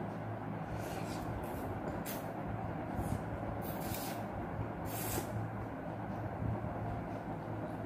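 Spaghetti noodles being slurped and chewed, several short slurps in the first five seconds, over a steady low hum.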